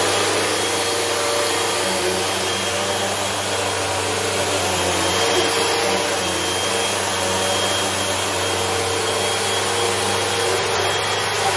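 Upright bagless vacuum cleaner running steadily with a thin high whine, pushed back and forth over a rug runner.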